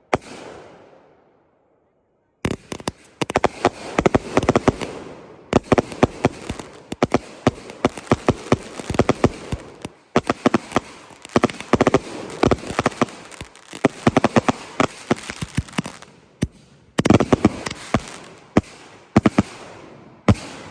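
200-gram consumer firework cakes firing: after a short pause, a nearly continuous run of sharp bangs and crackling, with brief lulls partway through.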